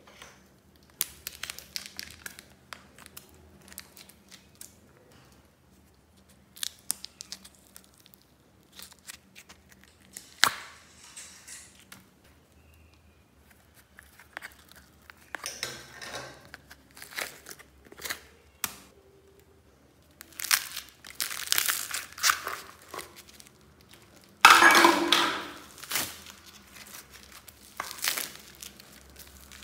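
Plastic tubs and bags crinkling and crackling as they are squeezed and tipped out, with small beads clicking, in irregular bursts that are loudest about three-quarters of the way through.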